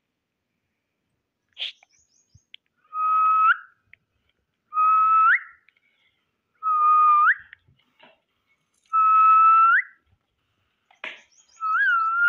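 Whistling: four long notes about two seconds apart, each held on one pitch and flicking upward at the end, then a shorter wavering note near the end.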